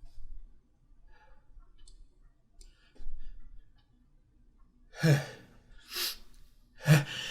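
A person's breathy, voiced gasps building up to a sneeze: three sharp intakes about a second apart, after a few faint rustles and a soft thump.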